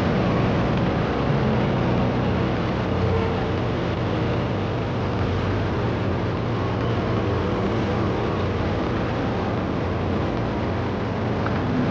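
Steady background din of a large railway station concourse, an even hum with no distinct events.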